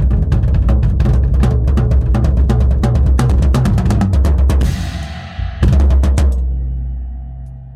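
Tama drum kit with Evans heads played in a busy run of fast strokes. The run breaks off, ends on one loud hit about six seconds in, and a low drum rings on and fades away.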